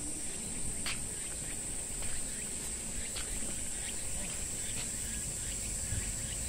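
Steady high-pitched insect drone with a low outdoor rumble underneath and a few faint short chirps.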